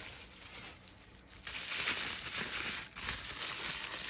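Packing paper and bubble wrap crinkling as a wrapped item is unwrapped by hand. The crinkling is faint at first and gets louder about a second and a half in.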